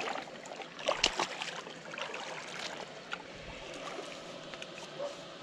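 Shallow water splashing and sloshing as a person wades and reaches into it at a rocky edge, with a cluster of sharper splashes about a second in.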